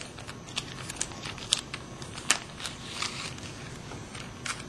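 A plastic bag of small connector parts being handled: irregular light clicks and brief crinkles, a few dozen over several seconds.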